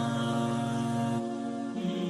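Background music: a nasheed, voices holding long chant-like notes that change pitch about halfway through.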